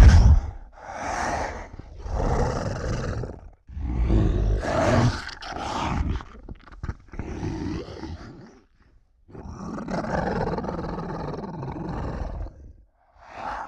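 A run of roar and growl sound effects, about seven separate roars. Each lasts one to three seconds with a short gap of silence between. The first is the loudest and a longer, steadier roar comes near the end.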